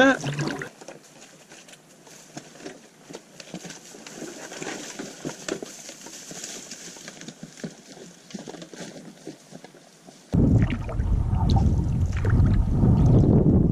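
Faint footsteps and rustling through wet grass and brush as a canoe is carried over a portage, with small scattered clicks. About ten seconds in, it cuts abruptly to loud low wind rumble on the microphone with water sloshing at a canoe on the open lake.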